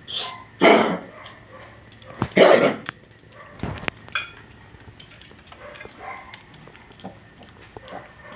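Old dog coughing: two loud, rough coughs about two seconds apart, then a few softer sounds. This is the cough of a dog with congestive heart failure.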